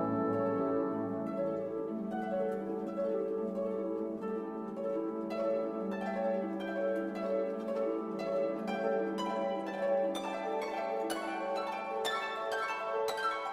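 Background music: soft classical-style instrumental with plucked harp or pizzicato string notes over sustained lower tones, the plucked notes growing busier about halfway through.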